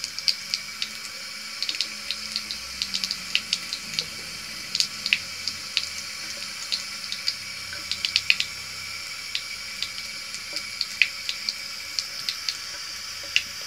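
A thin stream of tap water running steadily into a sink, with irregular small splashes and ticks as a kitten laps at the stream with its tongue.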